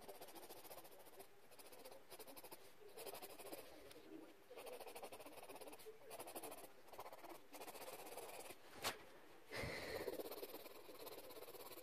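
Faint scratching of a coloured pencil shading on paper in short runs of strokes. A sharp click comes about nine seconds in, followed by a brief louder rustle.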